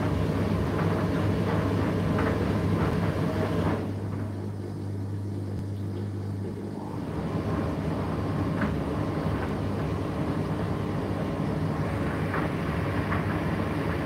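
Indesit IDC8T3 condenser tumble dryer running: a steady motor hum with the rush of the drum and fan, and occasional light ticks. About four seconds in the rushing sound drops away for about three seconds, leaving mostly the hum, then builds back up.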